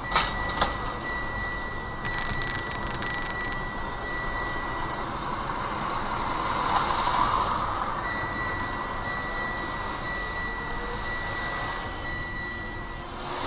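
Road and engine noise of a moving car heard from inside, with a steady high-pitched electronic beep tone that sounds for the first five seconds and again from about eight seconds in until near the end. Two sharp knocks right at the start.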